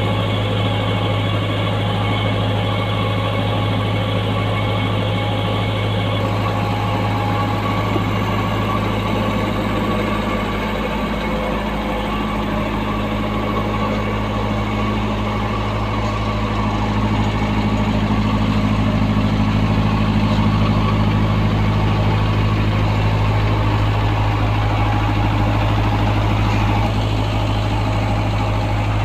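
Perkins diesel engine of a 20 kVA canopy generator set running at a steady speed, a constant low hum. It gets a little louder about two-thirds of the way through.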